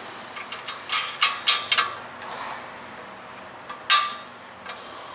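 Metal mower bagger bracket hardware clinking and knocking as it is fitted: a quick run of sharp metallic clicks about a second in, then one louder clink near the end.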